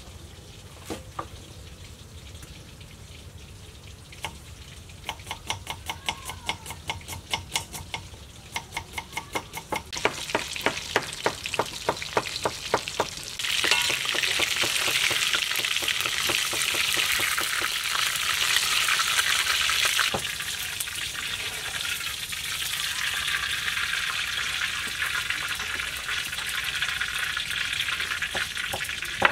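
Fish pieces frying in hot oil in a pan, a steady sizzle that comes in suddenly about halfway through and carries on, a little softer, to the end. Before it, a run of quick knocks, about three or four a second.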